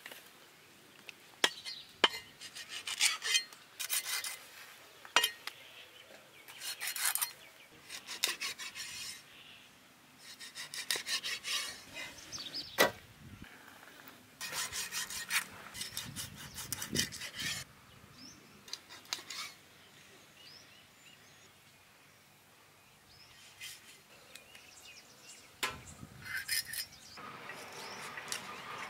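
A large knife working Spanish mackerel on a wooden stump chopping block: repeated bursts of rasping scrapes, with a few sharp knocks of the blade striking the wood.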